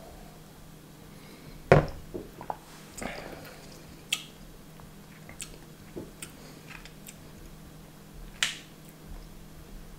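A stemmed drinking glass set down on a table with a single clunk a little under two seconds in, followed by scattered small lip smacks and mouth clicks while the drink is tasted, one of them sharper near the end.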